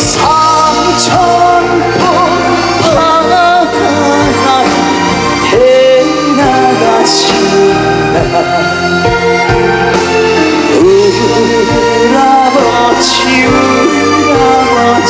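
Live trot music: a male singer's long wavering notes over band backing, with a few cymbal crashes.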